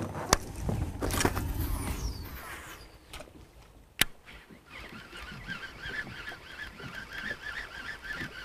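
A cast with a baitcasting reel: a swish, then the line running off the spool with a whizz that falls in pitch as the spool slows. From about four seconds in, a flock of birds calls together in a dense, continuous chorus of short repeated notes.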